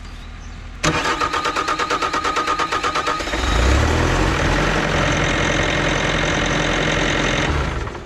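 Bobcat T595 skid steer's diesel engine cranking on the starter with a fast rhythmic churn, catching after about two seconds and running for about four seconds before it stops. It is a rare start on a fuel system that keeps losing prime and sucking air, which the mechanic puts down to a cracked fuel-tank pickup tube or a faulty cold-weather bypass valve.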